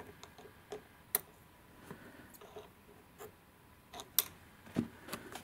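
A few faint, irregular clicks and light taps as hands work a marker pen at the rim of the stopped e-scooter hub-motor wheel; no motor running.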